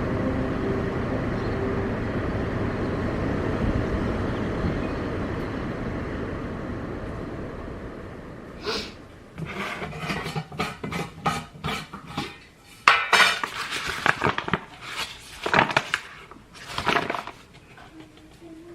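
Dishes and cutlery clattering: a run of sharp clinks and knocks, loudest about 13 seconds in. Before that, a steady rushing noise fades out over the first eight seconds.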